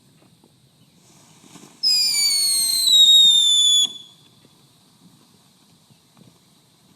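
Whistling firework letting out a loud, shrill whistle for about two seconds, its pitch falling slightly, then cutting off abruptly; a faint hiss leads into it.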